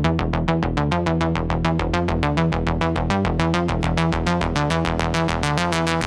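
Electronic synthesizer music: a fast, even run of short repeated synth notes, about eight a second, over a steady low bass.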